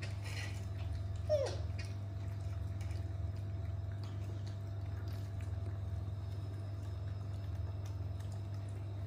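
Baby macaques eating dragon fruit: faint chewing and smacking clicks, and one brief falling squeak about a second and a half in, over a steady low hum.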